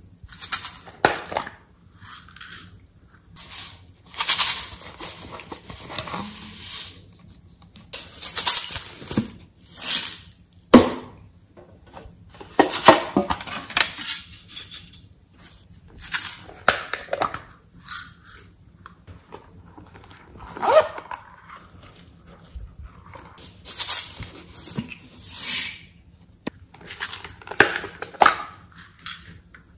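Small boxes of glitter and sequins being snapped open, shaken and emptied: a series of separate bursts of clicking, rattling and crackling, each a second or two long, with short quiet gaps between.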